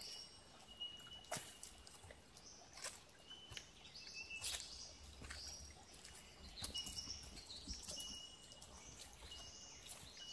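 Birds singing: short, thin, even-pitched whistles repeated every second or so, mixed with higher chirps. Scattered sharp clicks, like light steps or twigs on the track, run underneath.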